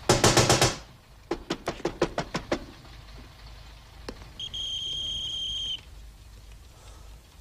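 Knocking and rattling on a glass-paned wooden door: first a loud rapid rattle, then a quick run of about ten sharp knocks. About four and a half seconds in, a high steady whistle-like tone lasts over a second.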